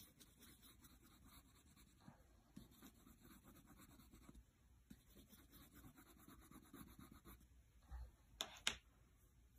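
Wax crayon scribbling on sketchbook paper: faint, rapid back-and-forth strokes that stop about seven seconds in. Near the end come two sharp clicks as crayons are put down and picked up.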